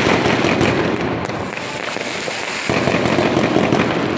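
Fireworks going off in a dense, rapid, continuous crackle of bangs. It eases a little about halfway through, then picks up again.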